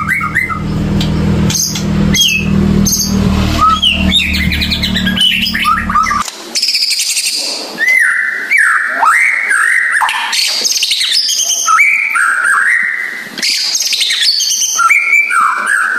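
White-rumped shama (murai batu) song played as a lure track meant to set a silent caged shama singing: loud, varied whistled phrases that rise and fall. A low hum runs under the first six seconds and cuts off suddenly.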